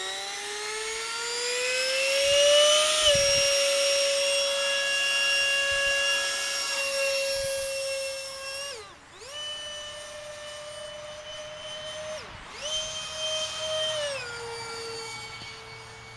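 Radio-controlled model jet's ducted fan whining at full throttle. The pitch is still rising for the first few seconds, then holds steady. It is cut back sharply and brought up again twice, then eased to a lower, steady whine near the end.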